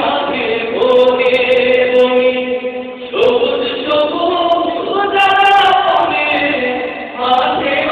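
A small group of men singing a Bengali song together, with long held notes.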